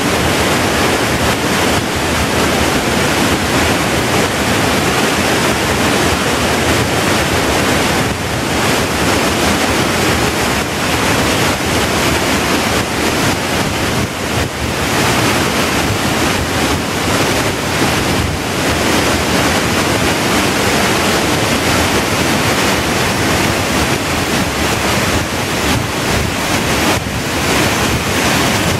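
Wahkeena Falls, a waterfall, pouring down rock in a loud, steady rush of falling and splashing water, heard close up.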